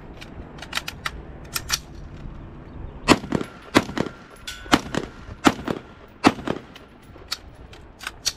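AR-15-style rifle fired in single, evenly paced shots. Five loud shots come about three-quarters of a second apart from about three seconds in, with fainter shots before and after.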